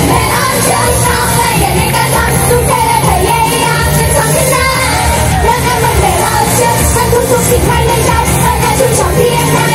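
Live idol-pop song played loud over a PA system, a girl group singing over an upbeat backing track.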